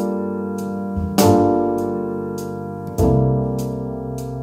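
Background music: piano playing slow, sustained chords, with a new chord struck about a second in and another about three seconds in, each ringing and slowly fading.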